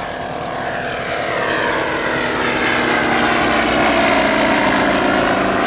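Comper Swift's Pobjoy Niagara seven-cylinder radial engine and propeller running in flight. The sound grows louder over the first few seconds while its pitch falls slowly.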